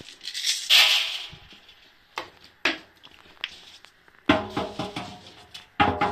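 Tennis balls dropped into the empty stainless-steel drum of a Siemens WM14N2L3 front-loading washing machine: two hard bounces a second and a half apart, each leaving the drum ringing. Before them come handling rustle and a few light clicks as a plastic dosing ball is set in the drum.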